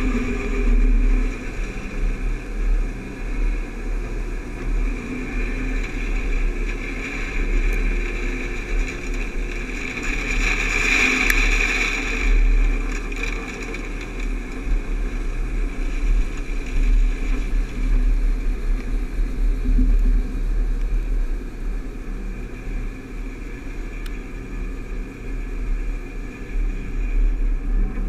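Harvest machinery running steadily: the engines of the tractor and the John Deere combine alongside, with the rushing of wheat pouring from the combine's unloading auger into the grain cart. The noise swells briefly near the middle.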